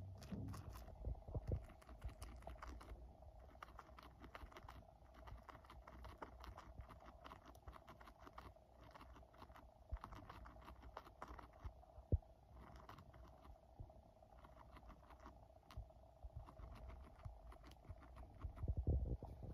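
Rabbit chewing dry food: a quick, uneven run of small crunching clicks over a faint steady hum, with an occasional louder knock.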